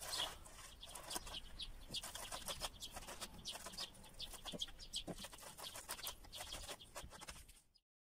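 Boiled eggs rubbed against a metal box grater on a wooden cutting board: a run of quick, soft rasping strokes that cuts off abruptly near the end.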